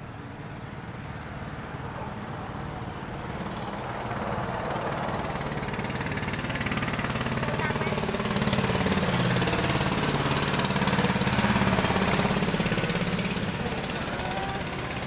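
A small vehicle engine with a fast, knocking beat draws steadily nearer, is loudest from about eight to thirteen seconds in, then begins to fall away as it passes.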